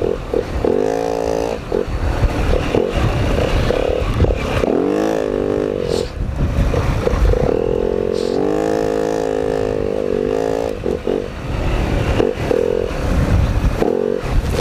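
Four-stroke dirt bike engine revving up and down as the bike works through tight trail, its pitch rising and falling every second or two, with occasional knocks underneath.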